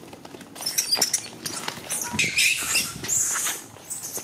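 Baby long-tailed macaque screaming in distress: a run of high-pitched shrieks starting about half a second in.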